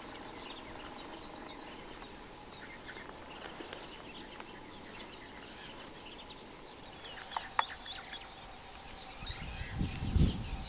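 Quiet outdoor ambience with scattered short, high bird chirps, a couple of sharp clicks about seven seconds in, and low rumbling thuds near the end.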